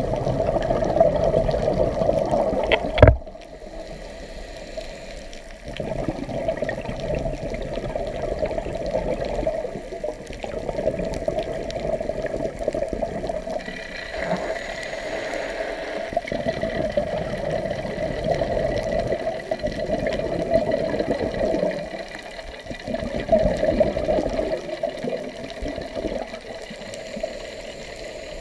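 Scuba diver's exhaled bubbles from the regulator, heard through an underwater camera housing: bubbling surges lasting several seconds, broken by quieter pauses between breaths. A single sharp knock comes about three seconds in.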